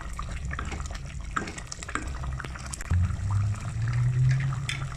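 A pot of cornflour-thickened chicken and vegetable soup bubbling at a boil in a steel pot, with many small pops and crackles, stirred with a wooden spoon at first. A low hum comes in about three seconds in.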